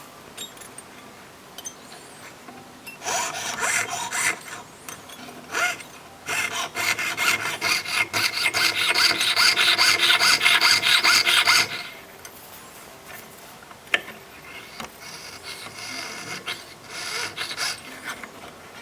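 Fine jeweller's saw blade cutting through 18K gold sheet with rapid back-and-forth strokes. The strokes come in runs: a short run, then a long loud steady stretch, then a few softer strokes with one sharp click.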